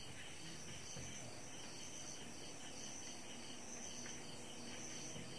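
Faint, steady chirping of crickets in the background: an even, high-pitched pulse repeating several times a second over a low hiss.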